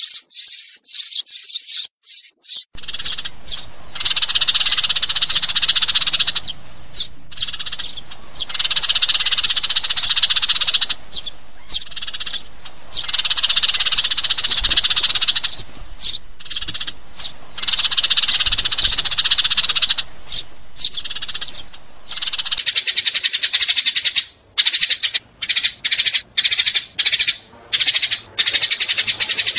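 House sparrows chirping and chattering in dense, high bouts a few seconds long with short breaks between them; for the last several seconds the chirps come as a quick string of separate sharp notes.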